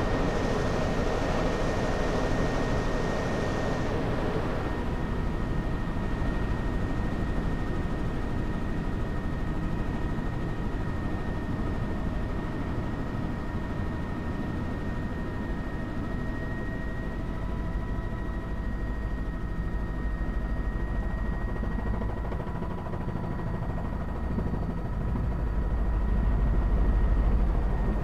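Helicopter in flight: steady rotor and engine drone with a constant high turbine whine over it. The low drone grows a little louder near the end.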